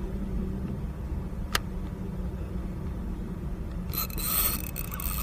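Steady low rush of a small river's flowing water, with a single sharp click about a second and a half in and a louder high-pitched hiss starting near the end.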